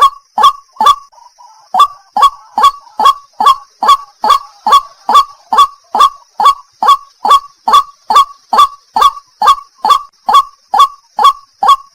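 White-breasted waterhen calling: a long run of loud, short, evenly spaced notes, a little over two a second, each dropping slightly in pitch, with one brief gap about a second in.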